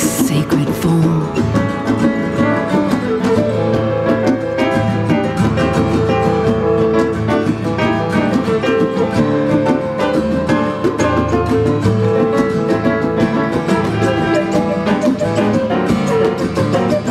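Instrumental acoustic band music: plucked strings over piano and hand drums, steady and full, with no singing.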